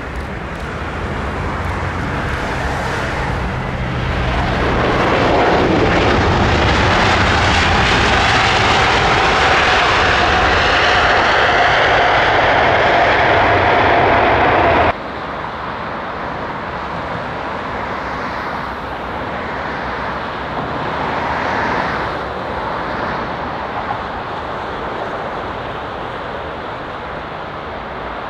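Jet airliner engines on a landing approach, growing from a distant hum to a loud, steady whine with a high fan tone as the aircraft passes close. About halfway through the sound drops abruptly to a quieter, more distant jet rumble.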